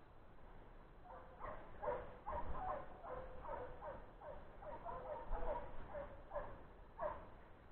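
A pack of boar-hunting dogs baying faintly in a chase, many short overlapping calls, the last near the end.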